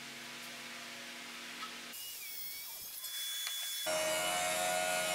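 A jointer runs with a board being fed across its cutterhead: a steady whine and hiss that comes in about four seconds in, after a quieter stretch of steady machine hum.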